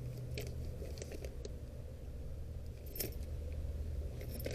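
Small metal lock plugs and keys clinking now and then as they are sorted through in a box of lock parts, over a low steady hum.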